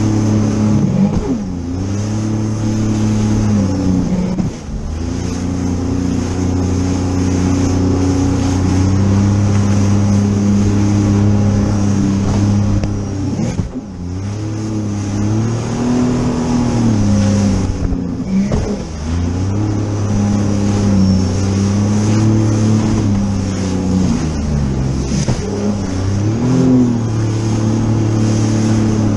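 Sea-Doo jet ski engine running hard at speed, its pitch dipping and climbing back about five times as the throttle eases and reopens over the chop, over the steady rush of water and spray.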